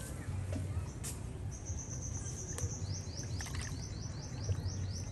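A bird calling outdoors: a high chirp held for about a second, then a fast string of short falling notes, about five a second, over a steady low hum.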